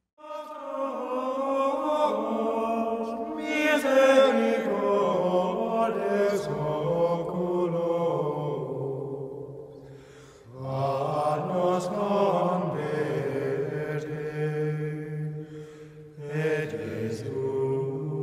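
Voices singing a slow liturgical chant in long held notes, in two phrases with a short break about ten seconds in.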